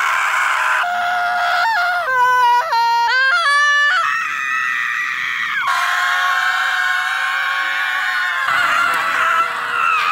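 People screaming as loud as they can: long held screams cut one after another. Between about two and four seconds in, the pitch jumps up and down in steps, and a long steady scream follows.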